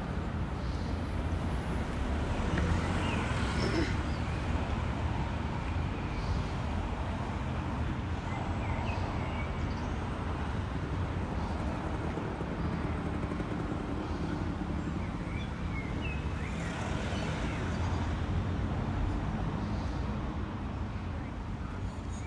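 Steady rumble of traffic on a busy city street, with faint snatches of passers-by's voices now and then.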